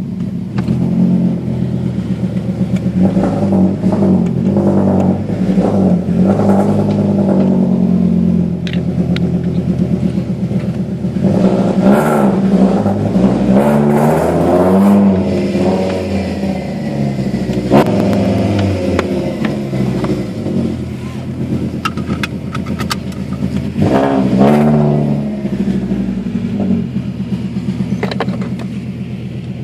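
Fiat Marea 2.4 20v inline five-cylinder engine with a full 2.5-inch exhaust, loud, its revs rising and falling several times. A single sharp crack about eighteen seconds in.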